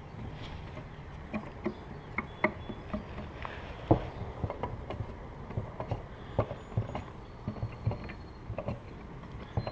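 Irregular light clacks and knocks of wooden beehive frame parts being handled and set into a frame-assembly jig.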